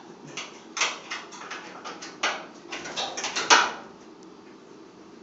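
Irregular knocks, clicks and scrapes of a washing machine's panel and parts being handled during disassembly, the loudest knock about three and a half seconds in.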